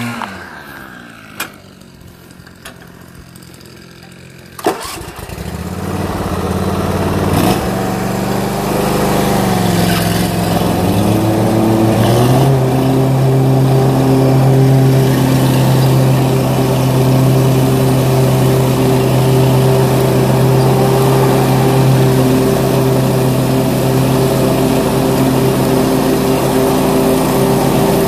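Exmark 48-inch walk-behind mower's engine winding down and stopping, then, after a few quieter seconds with a couple of clicks, starting again with a sharp knock about five seconds in. It idles unevenly, then speeds up about twelve seconds in and runs steadily at high speed.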